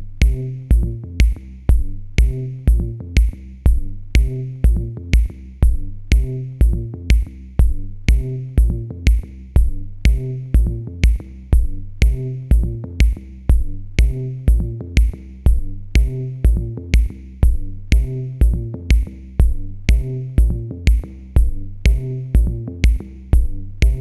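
Electronic music with a steady drum-machine beat: a kick about twice a second, crisp hi-hat ticks, and a repeating synth bass line.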